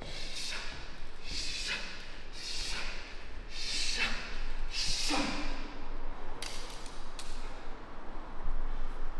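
Martial artists performing a kung fu form: about five sharp whooshing bursts, roughly one a second, each falling away quickly, then a couple of faint clicks.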